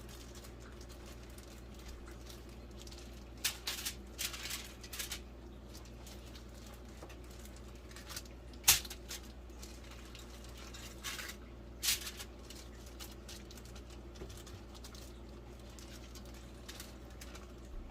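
Scattered handling sounds of cooking prep: short rustles and light clicks, with one sharp click or knock near the middle.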